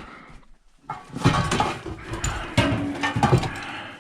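Scrap metal and tools clattering and scraping as they are rummaged through and moved about, starting about a second in.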